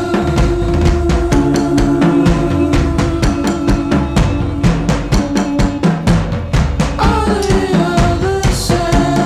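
Music with a fast, steady drum beat over sustained pitched tones; about seven seconds in, a tone slides down in pitch.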